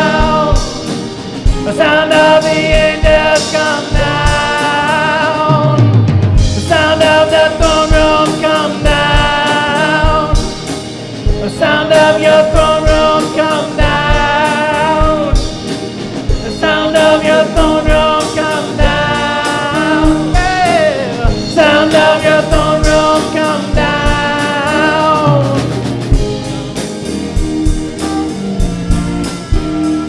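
Live worship band: a man singing held, wavering notes in phrases of a few seconds, over electric guitar and a drum kit. One phrase about twenty seconds in slides downward.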